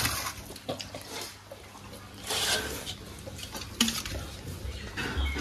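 Steel spoon clinking and scraping against a steel serving bowl and plates as food is served, a few scattered clinks.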